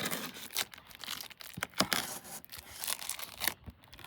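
A package being cut and torn open with a multi-tool blade: irregular ripping and scraping with crinkling of the packing.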